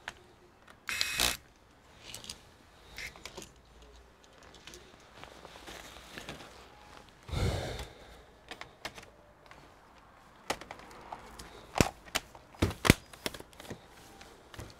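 Plastic laptop bottom cover and chassis being handled: two short scraping rustles, then a run of sharp plastic clicks and knocks near the end as the cover is fitted and the laptop is turned over.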